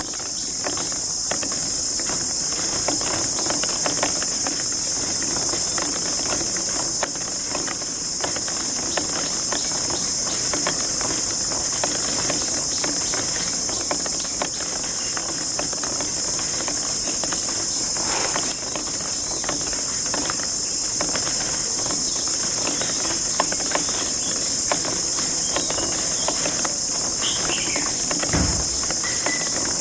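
Many marbles rolling and clicking along plastic marble-run tracks: a dense, steady clatter of small knocks over a constant high hiss.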